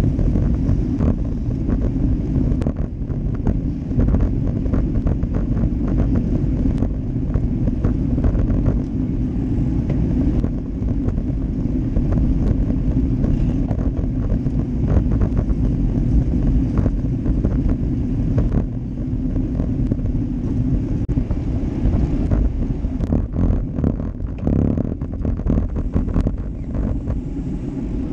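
Wind buffeting the microphone of a GoPro Hero Session on a moving road bike, over a steady low rumble of tyres on the road, with frequent short clicks and knocks from the bicycle.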